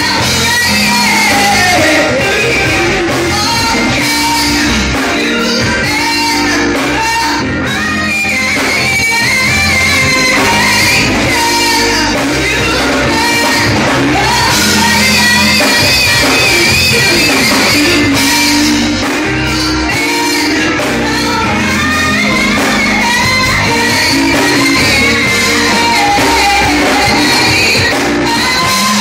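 A woman singing an R&B song live into a microphone over amplified instrumental accompaniment with a steady bass line.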